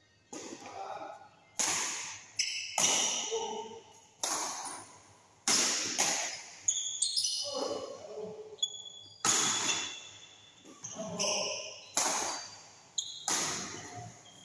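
Badminton rally: rackets strike the shuttlecock about a dozen times, sharp smacks roughly every second that echo in a large hall. Shoes squeak briefly on the court floor between shots.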